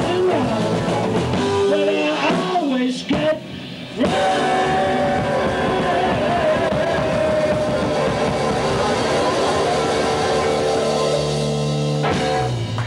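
Live rock-and-roll blues band playing electric guitars, bass and drum kit. The sound drops off briefly about three seconds in, then comes back as a long held chord, with low bass notes near the end.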